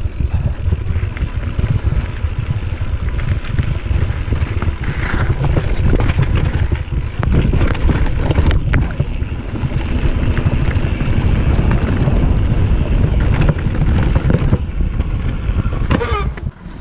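Wind buffeting the action camera's microphone while a mountain bike rides a trail, a steady low rumble with tyre noise and scattered clicks and rattles from the bike over rough ground. The sound drops out briefly just before the end.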